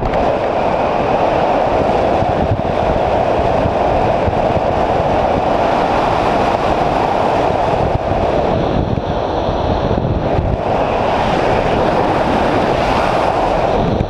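Wind rushing over the microphone of a GoPro mounted on a flying hang glider's wing: a loud, steady rush of airflow that eases slightly about nine seconds in and swells again after.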